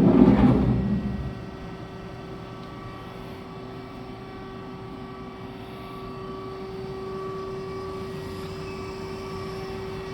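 A thump with a short rumble that dies away within about a second. It is followed by the steady hum of a powered-up Remedy CNC gang tool lathe, a few fixed tones over a low drone.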